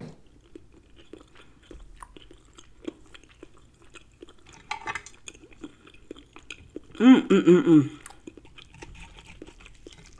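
Close-up chewing of a bite of chicken thigh: soft wet mouth clicks and smacks. About seven seconds in, a loud voiced sound from the eater, lasting about a second.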